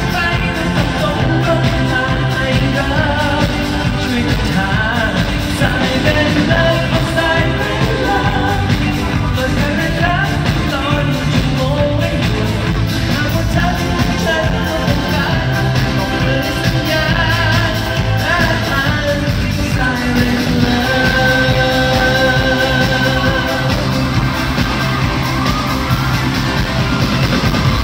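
A live pop-rock song played in a large arena: a male vocal sings over a full band with a steady beat, heard from within the audience.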